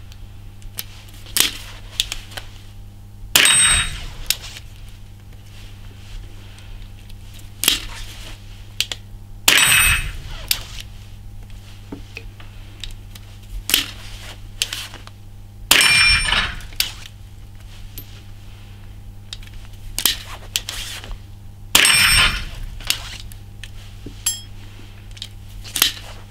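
Four .22 LR shots from a Chiappa Little Badger single-shot break-action rifle, about six seconds apart, each with a short metallic ring. Between shots come lighter clicks and knocks as the action is worked and reloaded by hand.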